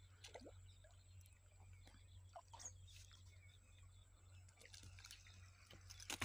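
Near silence: faint scattered drips and small clicks over a steady low hum, with a couple of sharper clicks near the end.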